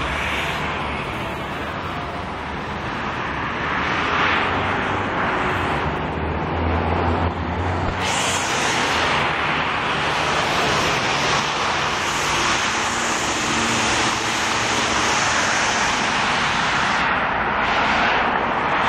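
Steady rushing outdoor roar with no clear tone, swelling about four seconds in and again about eight seconds in, then holding.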